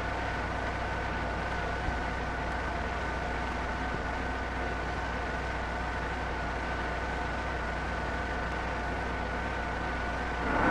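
Vertical boring mill (vertical turret lathe) running steadily: an even hum with a faint constant high whine, growing louder right at the end.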